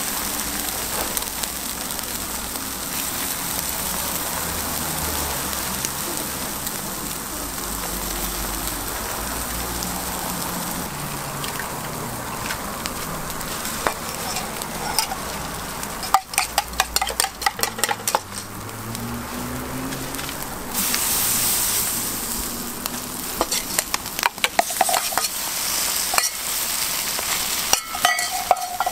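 Egg-and-cabbage patties sizzling on a hot flat-top griddle in a steady frying hiss. About halfway through, and again near the end, a metal spoon clatters in quick strokes against a steel mixing cup of egg and cabbage.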